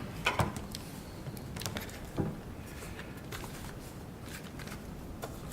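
A few faint, scattered clicks and knocks of a Canon BP-E1 battery grip being handled, over quiet room hiss.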